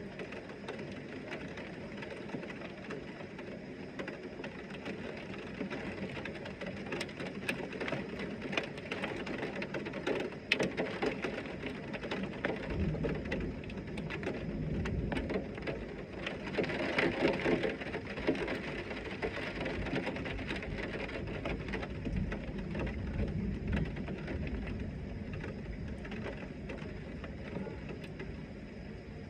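Heavy rain falling steadily, with many fine drop ticks. About midway a long, deep rumble swells up, peaks, and slowly fades.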